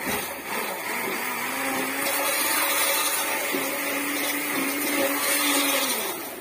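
Electric hand blender running steadily in a pressure cooker pot, puréeing boiled raw mango with water. It winds down and stops near the end.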